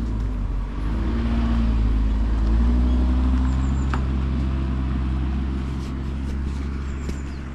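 Daihatsu Atrai kei van driving: steady engine and road rumble, the engine note shifting a little in the first few seconds, then holding steady.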